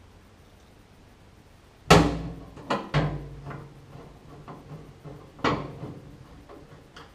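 Sharp knocks and clicking of a screwdriver and screws against a microwave's metal back panel as the screws are refitted. There are two loud knocks, about two seconds in and at about five and a half seconds, each with a short ring, and smaller clicks between and after them.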